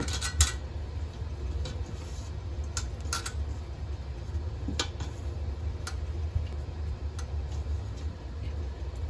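Hands pressing a fish into cornmeal breading in a stainless steel pot, with scattered light clicks and taps against the pot over a steady low hum.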